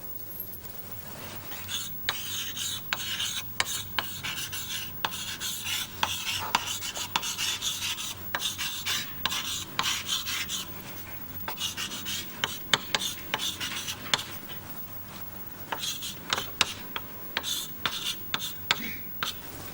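Writing strokes scratching across a writing surface, in bursts of quick rasping strokes with small taps, as a diagram is drawn.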